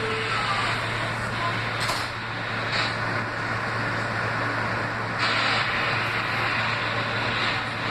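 R160B subway car's sliding doors closing, shutting with a thud about two seconds in, over the steady hum of the car's equipment. A short burst of hiss follows about five seconds in.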